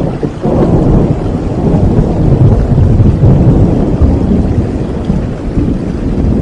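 Heavy rain with a long, deep rumble of thunder rolling through it, swelling about half a second in and easing slightly near the end.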